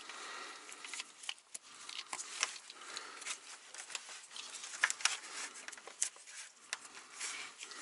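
Gloved hands handling a hose and its fitting at a transmission valve: scattered small clicks and taps over light rustling.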